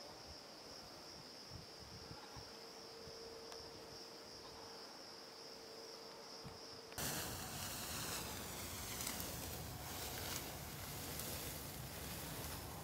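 Insects shrill steadily in a high, even buzz. About seven seconds in this gives way suddenly to louder rustling of ripe wheat stalks brushing against someone walking through the standing crop.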